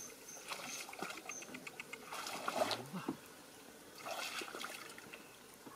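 Footsteps wading through shallow water and mud, in irregular splashes, loudest about halfway through. A high, evenly repeated chirp sounds in the first second or so.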